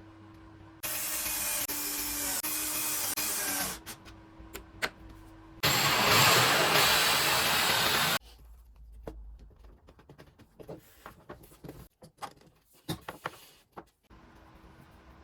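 A power tool runs in two short bursts, each starting and stopping abruptly, the second louder, followed by a run of light knocks and clicks.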